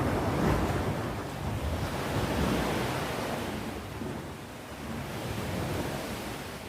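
Sea waves breaking and washing on the shore, swelling about half a second in and again around two and a half seconds, then easing off, with some wind noise on the microphone.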